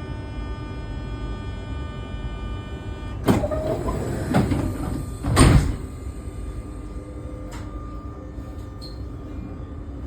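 A Z 20500 RER D train's door-closing warning buzzer sounds steadily, then stops as the sliding doors shut with three heavy thumps about three, four and five seconds in, the last the loudest. A low steady rumble runs underneath.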